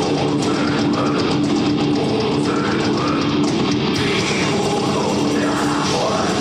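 Heavy metal band playing live: electric guitars and drums at a steady, loud level.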